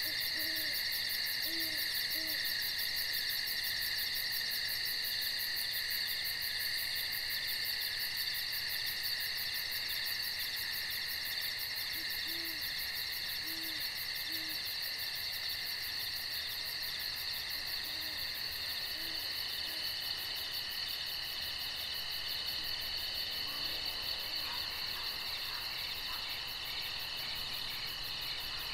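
A steady chorus of night insects, trilling at several pitches at once. Over it an owl gives low hoots in short runs of three or four, several times.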